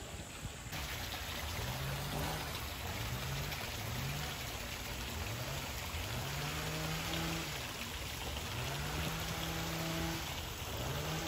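Pool water splashing and trickling, with an African (Cape) penguin braying in a donkey-like series of calls, each rising then held. The first calls are short, and the later ones are drawn out longer.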